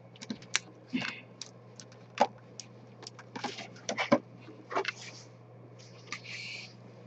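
A metal spatula prying 3D-printed plastic parts and support material off a perforated print board: irregular sharp clicks and small cracks as the plastic breaks away, with a short scrape of the blade near the end.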